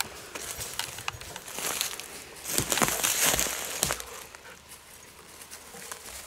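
Footsteps crunching through dry leaf litter, with crackling and rustling. About two and a half seconds in comes a louder stretch of crunching and rustling lasting about a second and a half.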